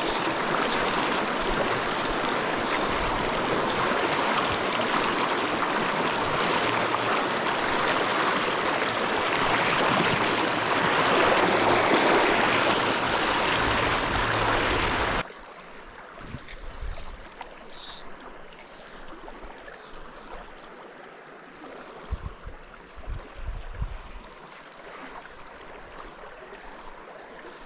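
Fast, shallow mountain river rushing loudly, with a few sharp ticks in the first few seconds. About halfway through it cuts abruptly to a quieter, steady flow of water with some low thumps.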